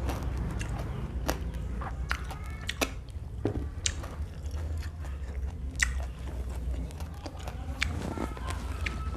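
A person chewing and biting crunchy raw food close to the microphone, with many crisp irregular crunches and mouth clicks: eating raw lalapan vegetables with salted fish and sambal.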